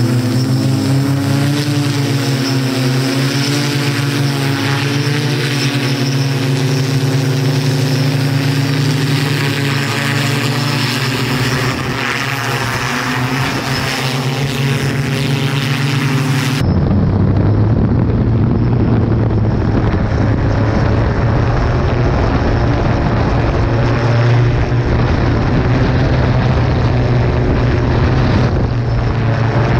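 Electric quadcopter hoverbike (Hoversurf Scorpion S3) hovering, its four propellers droning steadily with the pitch wavering slightly as the rotor speeds adjust. About halfway through, the sound switches abruptly to a rougher, noisier version of the same rotor drone heard from on board the craft.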